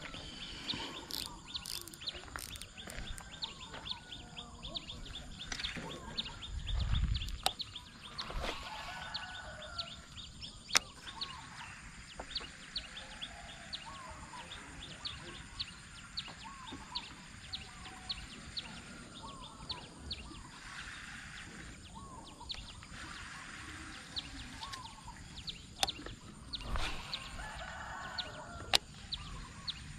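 Chickens clucking, with small birds chirping and a run of fine high ticks. There are a few sharp clicks, the loudest about eleven seconds in, and a brief low rumble about seven seconds in.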